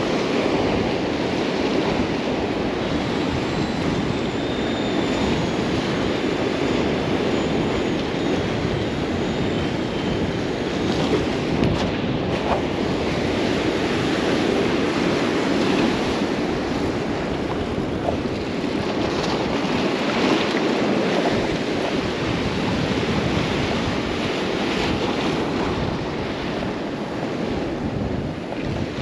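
Gulf surf breaking and washing against a granite rock jetty in a steady rush, with wind buffeting the microphone.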